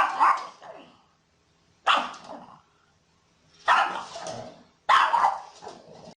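Pug barking: four barks, each about half a second to a second long with a fading tail, spaced a second or two apart.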